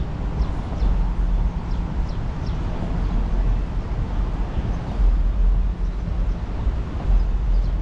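City street ambience: a steady low rumble of traffic, with a few faint high bird chirps in the first few seconds.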